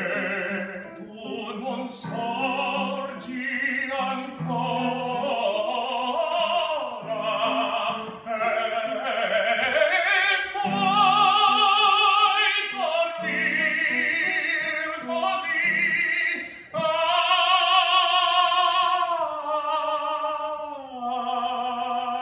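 Male opera singer singing with strong vibrato, accompanied by piano chords on a digital keyboard; in the last few seconds he holds long sustained notes, stepping down to a final held note.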